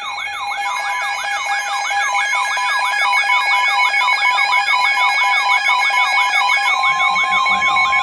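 Several NOAA weather radios sounding their alert alarms together, signalling a new warning: a fast warbling siren tone sweeping up and down about four times a second over steady and pulsing beeps, growing louder. A steady single-pitch warning tone joins about seven seconds in.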